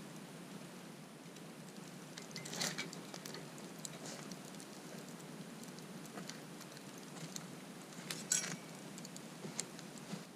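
Wood campfire crackling, with irregular sharp pops over a low steady hiss; the loudest pops come a bit over two seconds in and about eight seconds in.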